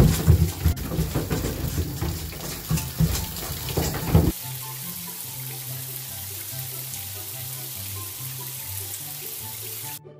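Water rushing and splashing in a bathtub for about four seconds, cutting off suddenly, followed by background music with a slow pattern of low notes.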